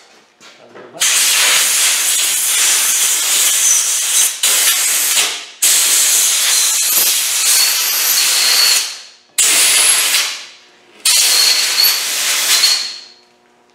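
A pressurised jet hissing loudly in about five long blasts with short gaps, a faint whistle riding on some of them, used to clean oily residue off an engine block's rear flange.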